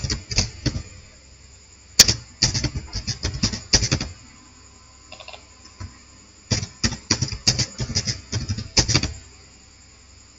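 Typing on a computer keyboard: keys clacking in three quick runs, with quiet pauses between them.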